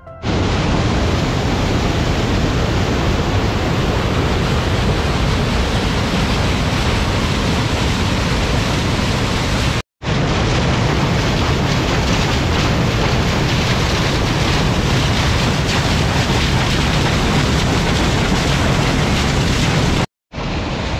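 A strong torrent of water rushing down a narrow stone spillway channel and pouring over a stone drop, a loud, steady rush. It cuts out abruptly for a moment about ten seconds in and again near the end.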